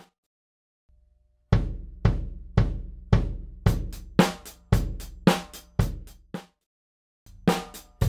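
Drum kit playing a steady beat on a 22x18 bass drum and snare, strokes about every half second, with the kick pedal clamped straight to the bass drum hoop and no isolation plate under it. The beat starts about a second and a half in, stops after about five seconds, and starts again just before the end.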